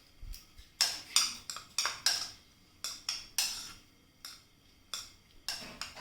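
A spoon mixing chopped onions and tomatoes with salt in a bowl, knocking and scraping against the bowl in a dozen or so short, irregular strokes.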